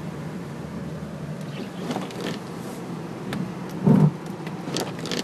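Truck on Sno Trex tracks driving through snow, heard from inside the cab: a steady engine drone with several knocks and clunks, the loudest a heavy low thump about four seconds in.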